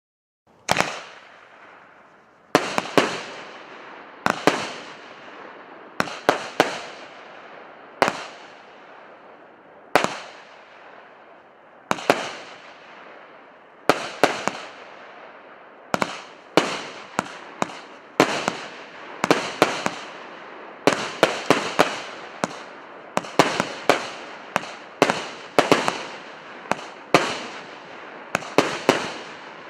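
A 100-shot, 1.2-inch consumer firework cake ('Solar Wind') firing shot after shot: sharp bangs, each followed by a fading hiss. They start about half a second in, come roughly every two seconds at first, then quicken to clusters of several shots a second in the second half.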